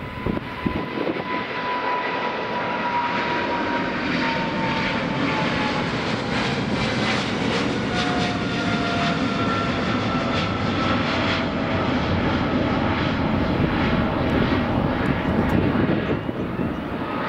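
Boeing 777 freighter's twin GE90 turbofans at take-off thrust as it climbs out: a loud, steady jet noise with a whining tone that slowly falls in pitch as the aircraft passes and draws away.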